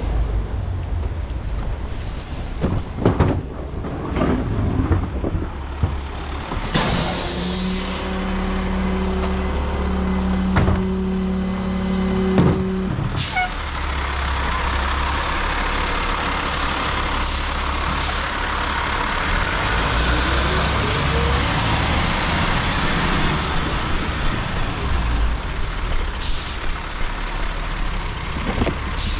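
Garbage truck running with a steady low rumble, with a loud hiss of the air brakes about seven seconds in. A steady hum follows for about five seconds, and there are a few short clicks near the end.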